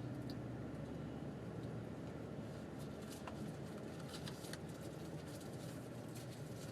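Steady low hum of a car's engine and road noise heard from inside the cabin while driving, with scattered light clicks and ticks.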